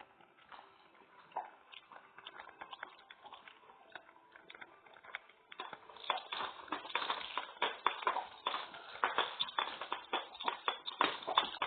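A utensil stirring a sticky mixture of PVA glue and baking soda in a bowl, giving quick irregular clicks and taps that are faint at first and become dense and louder about halfway in.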